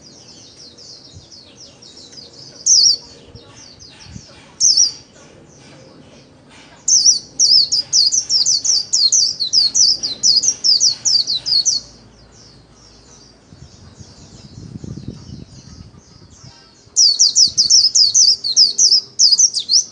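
White-eye singing its rapid, high-pitched 'líu' warbling song: short loud phrases about 3 and 5 seconds in, then long runs of quick notes from about 7 to 12 seconds and again near the end, with softer twittering between.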